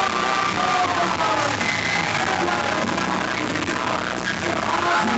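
Music playing at a live stage show, with a steady crowd din underneath.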